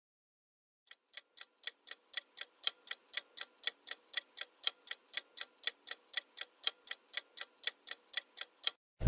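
Clock-style countdown-timer ticking at about four ticks a second, the ticks alternating slightly louder and softer. It fades in about a second in and stops just before the end.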